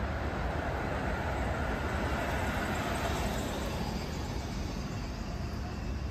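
Street traffic noise: a steady rumble and hiss of passing vehicles, a little louder around the middle.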